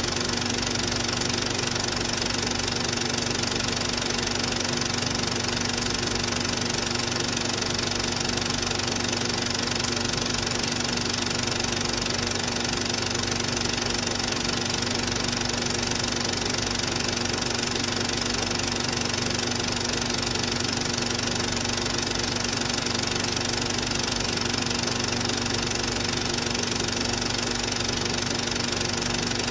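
Cine film projector running steadily: a constant mechanical rattle with a steady hum that stays the same throughout.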